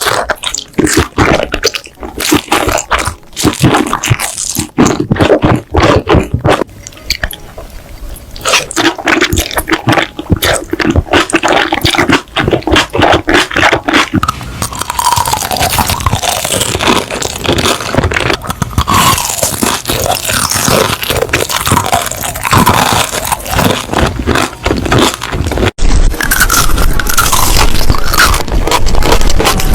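Close-miked ASMR eating: crisp crunching bites and chewing in rapid clicks, turning into a denser, squeakier chewing texture in the second half.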